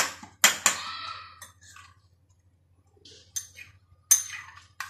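Metal spoon clinking against a ceramic bowl while stirring omelette batter: a few sharp clinks with a short ring, a pause, then more clinks near the end.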